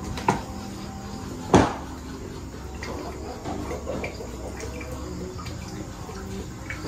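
Plastic water bottle being opened, with two sharp clicks, the second the loudest, then water glugging in the tipped-up bottle as it is drunk down.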